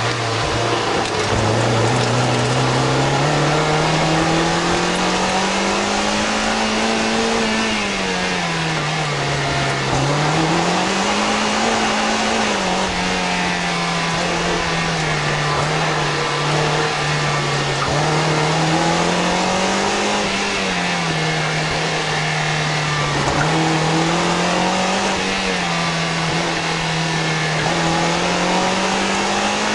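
Toyota MR2 Spyder's four-cylinder engine through a Powerhouse Amuse titanium exhaust, heard close at the tailpipe under hard driving. The exhaust note rises and falls every few seconds as the car accelerates and backs off, again and again.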